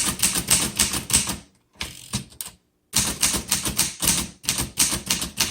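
1947 Underwood Universal portable manual typewriter being typed on: quick runs of key strikes, with a short, quieter break about a second and a half in before the typing picks up again.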